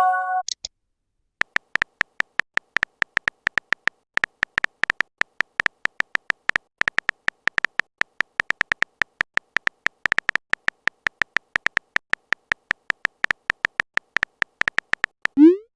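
Phone keyboard typing clicks, short and sharp, coming quickly and unevenly at several a second. Near the end comes a short rising swoop like a message-send sound.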